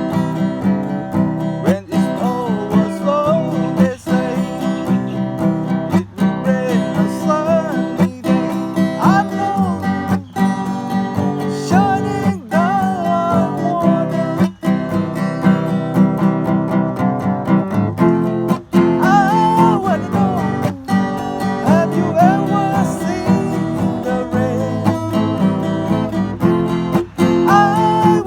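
Acoustic guitar strumming steady chords in a folk-rock cover, with a melodic lead line of bent notes played over it. Short breaks in the strumming come about every two seconds.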